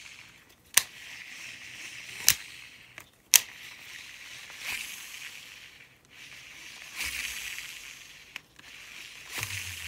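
Spool of a Shimano Exsence DC baitcasting reel spinning freely in short runs with a soft high whir, broken by three sharp clicks in the first few seconds. The electronic DC brake's usual whine is missing, the fault that a brand-new DC module has not cured.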